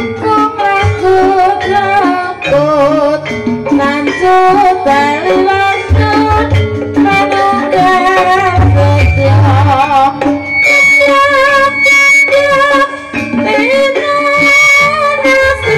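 Javanese ebeg accompaniment: gamelan music with kendang hand-drum strokes under a sung melody, loud and continuous. From about ten seconds in, a high held note sits over the music.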